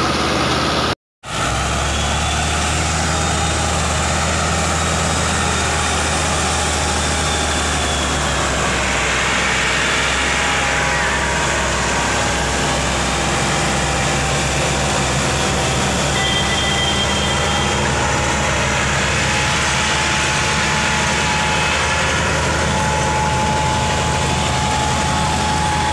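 Diesel tractor engines running steadily under load as they pull a heavily loaded sugarcane trailer through deep mud; a continuous low drone that drops out for a moment about a second in.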